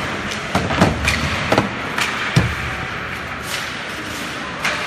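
Ice hockey play heard from beside the boards: irregular sharp clacks and knocks of sticks, puck and boards, several in the first two and a half seconds and another near the end, over a steady background noise in the rink hall.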